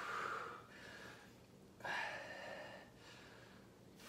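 A man breathing hard from exertion during a resistance-band exercise, with long breaths about two seconds apart.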